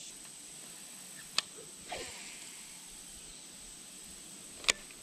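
Steady high-pitched insect buzzing, like crickets or cicadas, with two sharp clicks, one about a second and a half in and a louder one near the end, and a short swish between them.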